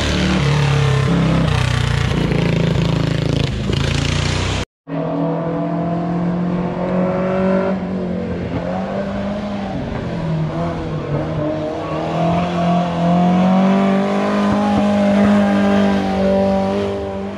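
Historic racing car engines at full throttle on a hill climb. One car passes loudly at the start. Then, after a sudden cut, a four-cylinder Ford Cortina Mk1 is heard climbing through the gears, its pitch rising and dropping at each shift, and it passes near the end.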